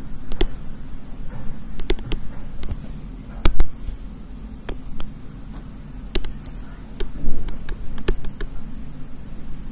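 Irregular sharp taps and clicks of pen input while handwriting on a digital whiteboard, with a couple of louder knocks, over a steady low hum.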